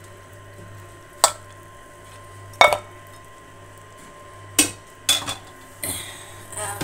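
Metal slotted skimmer clinking against a metal cooking pot as beef bones are fished out of boiling broth: five or six sharp knocks a second or so apart, the loudest near the middle, over a steady low hum.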